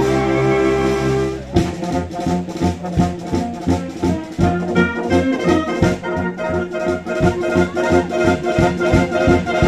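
Military wind band of saxophones and brass playing a held chord, then, about a second and a half in, a brisk rhythmic passage with a steady beat of about two a second.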